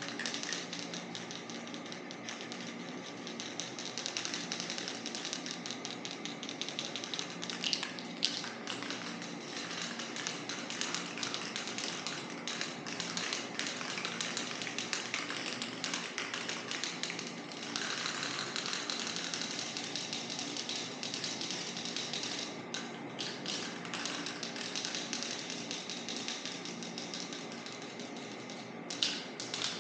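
Spray paint hissing in long passes as a thick coat goes onto the panel, broken by a few brief pauses.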